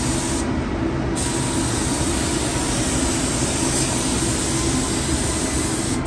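Paint spray gun spraying primer onto a truck's body panel: a steady hiss of compressed air over a low hum.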